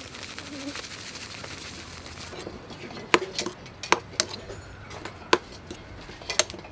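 Fine seasoning granules pattering onto shredded green mango in a bowl, a steady hiss that stops a couple of seconds in. After that, a metal spoon clinks sharply and irregularly against a ceramic bowl as the salad is tossed.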